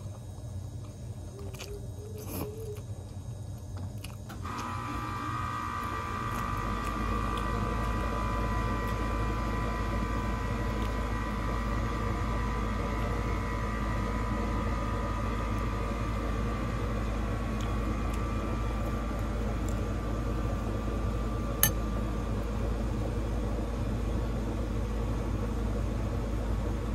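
Air-conditioning unit starting up about four seconds in, then running with a steady hum and low rumble. A single sharp click comes near the end.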